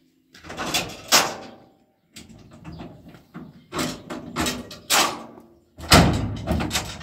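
Steel tailgate of a pickup truck being unlatched and let down: a run of sharp metal clanks and knocks, the heaviest about six seconds in as the tailgate drops open on its chains.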